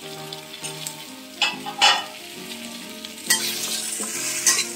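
Mixed vegetables sizzling in oil in a metal kadai over low gas, with a metal spatula clattering against the pan twice about a second and a half in. The sizzle grows louder and hissier from about three seconds in as the pieces are turned.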